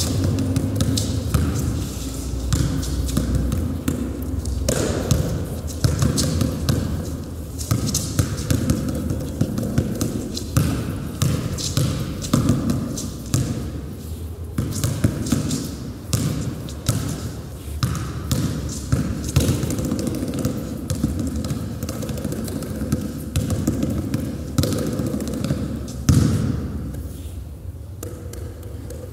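A basketball dribbled hard on a wooden parquet gym floor, in quick irregular runs of bounces that die away near the end.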